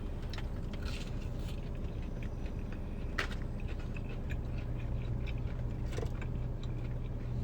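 A person chewing and crunching food close to the microphone, with scattered short crunches and clicks over a steady low hum.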